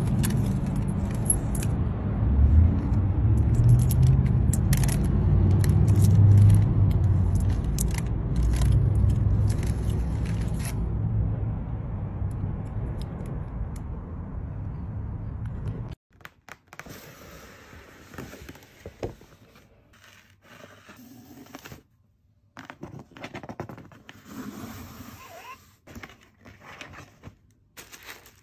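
A loud, steady low rumble with small sharp clicks over it, which stops at a sudden cut about halfway through. After it come quieter close-up handling sounds: scattered taps, clicks, scrapes and rustling of packaging being handled during an unboxing.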